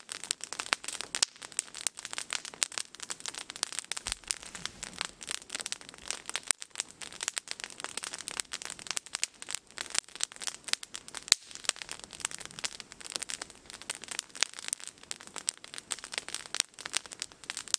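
Wood campfire crackling, a dense, irregular run of sharp pops and snaps.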